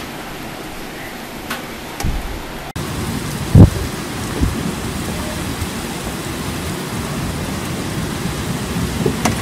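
Storm rain and wind as a steady hiss. About three seconds in it cuts to a louder stretch of gusty rain with deep thumps, the loudest just after the cut.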